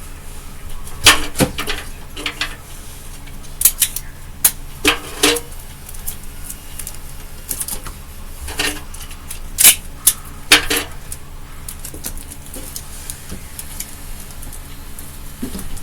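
Irregular sharp clicks and clatters of small hard objects being handled, about a dozen spread through the stretch, some with a brief ring, over a steady low hum.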